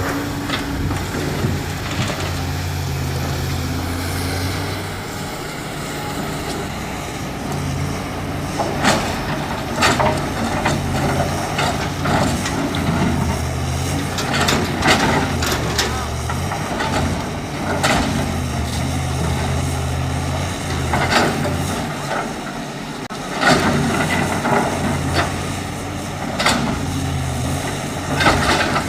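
Diesel engine of a JCB 3DX backhoe loader running at work beside a truck, its steady hum dipping now and then, with repeated clanks and short hisses through the second half.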